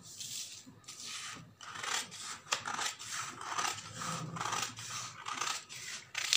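Large tailoring scissors cutting through paper to cut out a pattern piece: a steady run of snips, about two a second.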